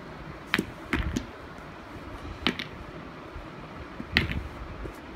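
Toy letter blocks clacking against each other and being set down: a handful of short sharp knocks in three small groups, with short pauses between them.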